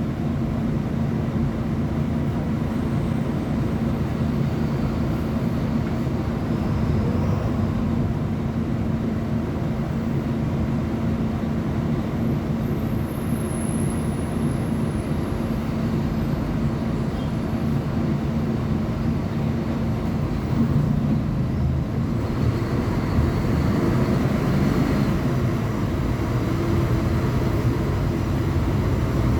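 Mercedes-Benz O500UA Bluetec 6 articulated bus's diesel engine running with a steady drone. About two-thirds of the way in, its note changes and it gets a little louder.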